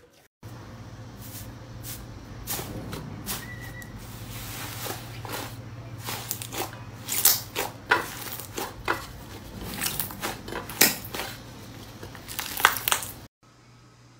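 Hands squeezing and poking slime, making irregular sharp crackles and pops over a steady low hum. The sound starts and stops abruptly at clip cuts.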